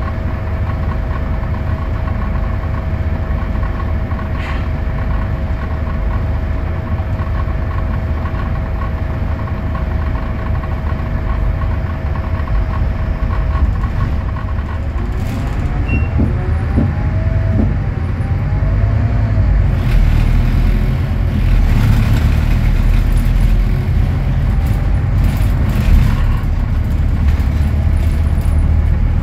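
Scania DC09 five-cylinder diesel of an articulated city bus, heard from on board: a steady engine note with a constant whine for the first half. About halfway, whining tones slide up and down in pitch as the bus pulls away. The engine then grows louder through the last third, with scattered rattles and knocks.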